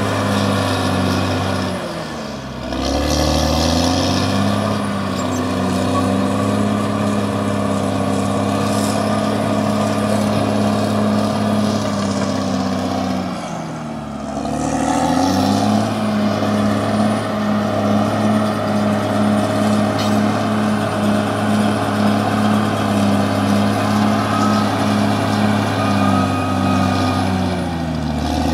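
Caterpillar D6R XL bulldozer's diesel engine running under load with a steady drone. Three times, at roughly twelve-second intervals, the revs and level sag and then climb back up.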